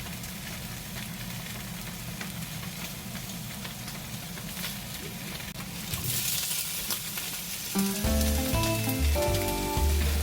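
Food sizzling in a frying pan; the sizzle gets louder and brighter about six seconds in. Background music with distinct notes comes in near the end.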